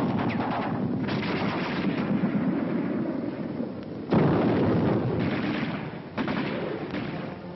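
Combat sound on a 1940s film soundtrack: rapid gunfire, then two sudden heavy artillery blasts about four and six seconds in, each fading away.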